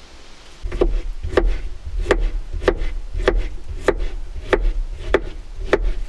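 A kitchen knife slicing a cucumber on a cutting board: steady chopping, about ten even strokes, each with a thud as the blade hits the board. It starts about a second in.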